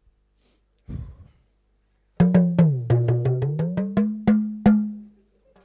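Talking drum struck with a curved stick, about a dozen quick strikes, its pitch sliding down and then rising as the cords are squeezed, the last note ringing out.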